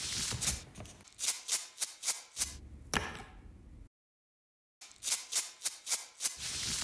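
Footstep sound effects: a run of sharp crunching steps, a few a second, as on gravel. They cut off abruptly near the middle into a second of dead silence, then start again.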